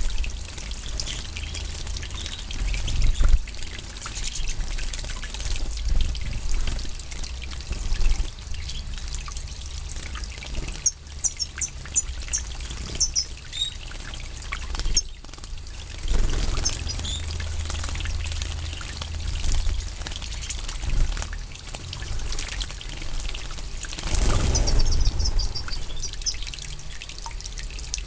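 European goldfinches bathing in a shallow pool: water splashing and trickling as they flap and dip, with a heavier flurry of splashing near the end. Short high chirps come now and then.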